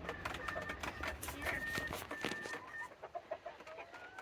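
Serama bantam chickens clucking and calling, with a few short held high notes and, near the end, a call that rises in pitch, among many short clicks.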